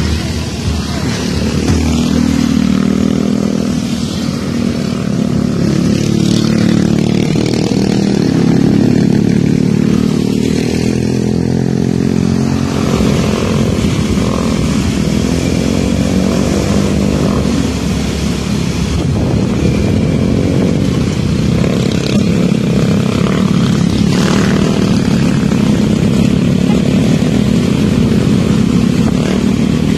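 Engines of a group of small motor scooters running steadily as the riders travel together along a road, their pitch shifting as they change speed.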